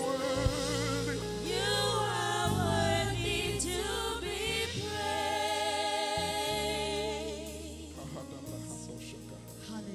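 Gospel worship music: a singing voice holds long, wavering notes over sustained low accompaniment chords. It grows softer near the end.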